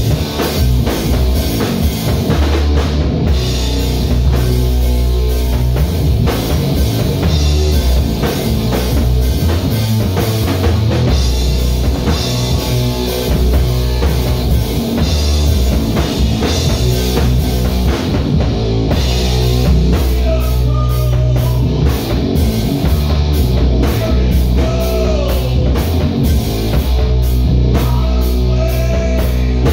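A heavy rock band playing live at full volume: a pounding drum kit, distorted electric guitars and bass in a dense, unbroken wall of sound.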